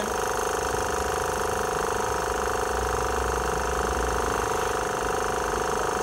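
Small electric pump of a homemade gasoline-vapour heating rig running with a steady, even buzz.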